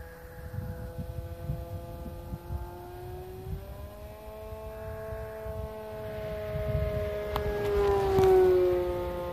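Radio-controlled model airplane's motor and propeller droning. The pitch rises, then falls as the plane passes close overhead near the end, where it is loudest. Wind gusts buffet the microphone throughout.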